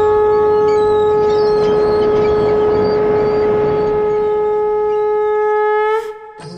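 Conch shell (sangu) blown in one long, steady, loud note, rising slightly just before it cuts off sharply near the end.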